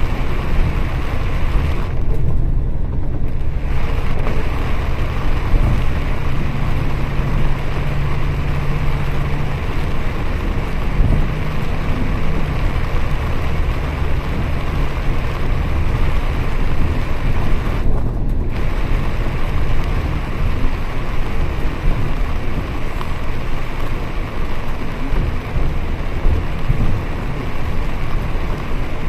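Inside a moving bus in heavy rain: steady engine and road rumble under a hiss of rain on the windows and body. The rain hiss dips briefly twice, and a steady low hum sits over the rumble for a few seconds in the middle.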